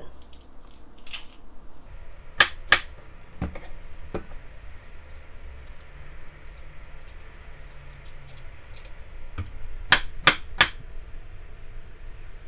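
A kitchen knife cutting and coring a peeled Korean pear over a wooden cutting board, with a few sharp clacks in two clusters: about two and a half seconds in and again about ten seconds in.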